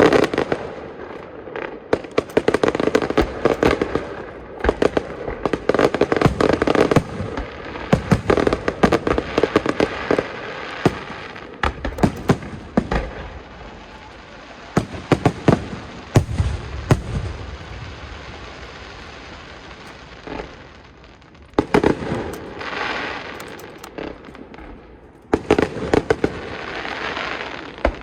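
Aerial fireworks shells bursting in quick volleys: sharp bangs and booms with crackling between them. There is a lull about two-thirds of the way in, then new volleys start up near the end.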